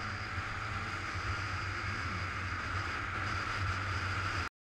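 Wind noise buffeting the microphone over the low drone of a Suzuki GZ 250 single-cylinder motorcycle cruising at road speed. The sound cuts off abruptly near the end.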